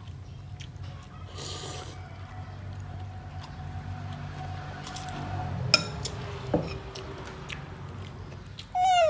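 Small clicks and taps of longan fruits and shells being handled on a metal tabletop over a steady low hum, with one sharper click a little past halfway. A brief voice sound comes right at the end.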